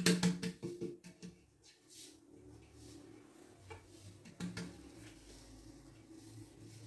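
A few light knocks and clatters of kitchenware being handled, an aluminium cake pan against a bowl of cake batter, over a faint steady low hum.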